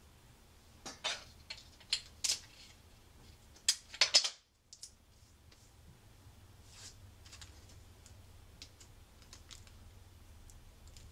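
Clear Scotch tape being pulled and torn by hand: a run of sharp crackling clicks, loudest about four seconds in, followed by fainter scattered ticks as the strip is handled.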